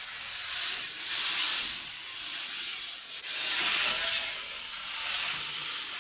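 Rough hissing rub of a tool working over wood, swelling and fading in repeated strokes about every one to one and a half seconds.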